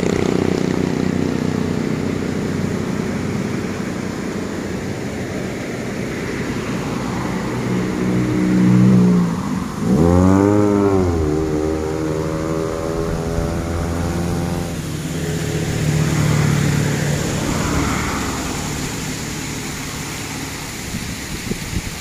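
Motorcycle ride: engine running under wind and road noise. About ten seconds in, an engine note rises sharply, then sinks slowly over the next few seconds.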